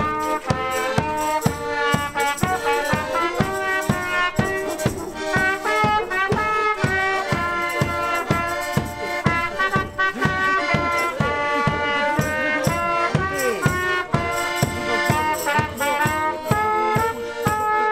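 Street band music: an accordion playing a quick tune over a steady bass drum beat.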